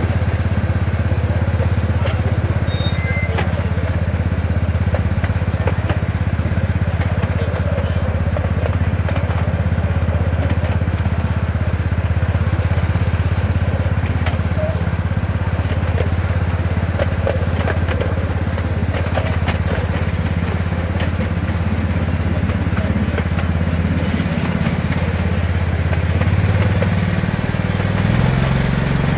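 Small engine of a miniature railway diesel-outline locomotive running steadily as it hauls the train, with scattered faint clicks. Its note rises near the end.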